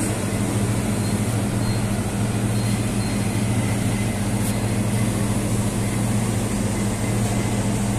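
Steady low machinery hum with a constant rushing noise over it, unchanging throughout.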